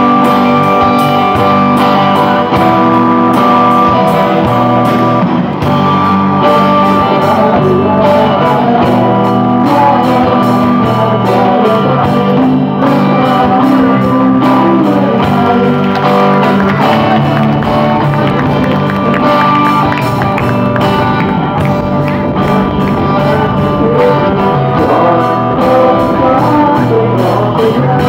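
Small rock band playing live: a drum kit keeping a steady beat under bass guitar and guitars, continuous throughout.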